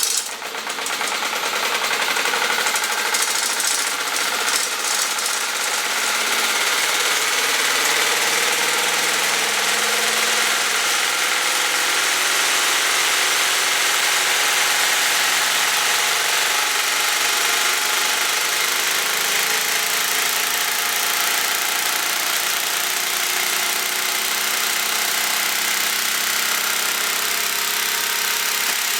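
Gutted sewing machine driven at high speed by a belted treadmill motor, running loud with a dense mechanical racket. It comes up to speed in about the first second and then runs steady.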